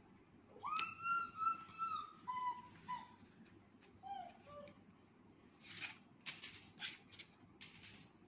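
High-pitched sing-song vocalising, held notes that step down in pitch over the first few seconds. It is followed by a run of dry scrapes and knocks from wooden Montessori number cards being stacked and handled.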